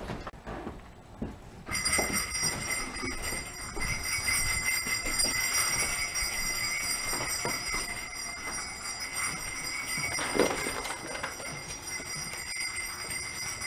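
Jingle bells shaken continuously in a steady shimmering jingle, starting abruptly a couple of seconds in.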